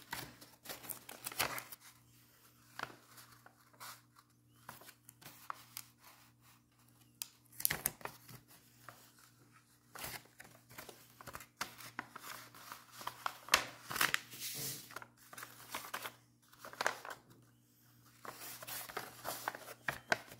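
Paper rustling and crinkling in irregular bursts as a folded paper strip is handled and creased, with sticky tape being pulled and pressed onto it.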